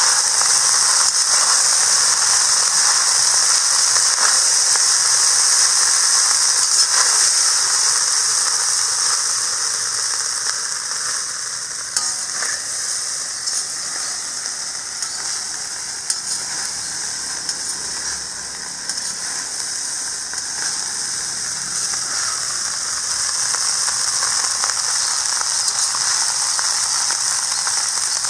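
Vegetable fried rice sizzling in a hot wok while a metal spatula stirs and turns it, with a few sharp clicks of the spatula against the wok.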